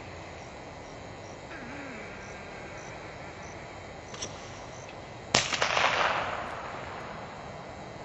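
A single shotgun blast about five seconds in, sharp at the start and echoing away over a second or so: the gunner's shot for the mark the retriever is sent to fetch from the water.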